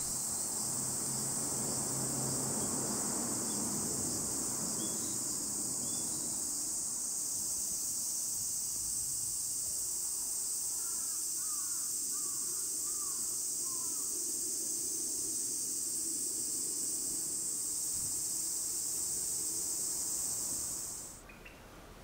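A steady, high-pitched chorus of insects, cutting off suddenly about a second before the end. A few short, faint bird notes come through around the middle.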